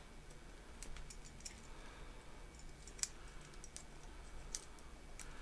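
Light metal clicks of a tiny folding canister stove's pot-support arms being folded up by hand: a few sharp ticks scattered over several seconds, the loudest about three seconds in.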